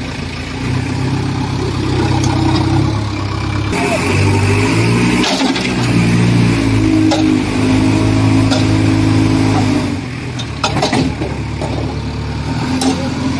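Diesel engine of a JCB backhoe loader revving under load as it pulls a chained, sand-laden tractor trolley stuck in mud. The revs rise about a second in, shift up and down through the middle, and drop back near the end, with a few knocks.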